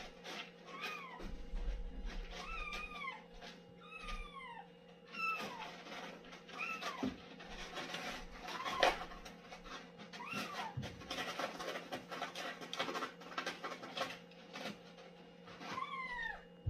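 A domestic cat meowing while it uses the litter box: about seven short calls, each rising then falling in pitch, spread a second or more apart, with scratchy rustling between them.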